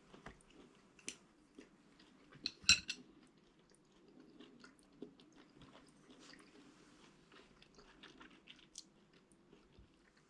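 Quiet tabletop handling of tableware: scattered soft clicks, and one sharp clink about two and a half seconds in that rings briefly.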